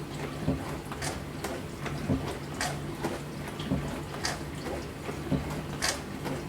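Dishwasher running: a steady low hum of the pump and motor under a wash of spraying water, with short sharp splashes or clacks about every half second to second.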